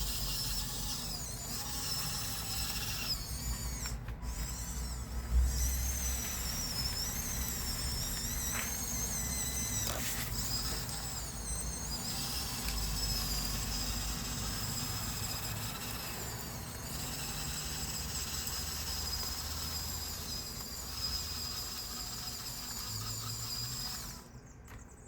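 Huina 1554 RC bulldozer's small electric drive motors and gearboxes whining, the high pitch wavering up and down as the motors speed up and slow down, with a knock about five seconds in. The whine stops about a second before the end.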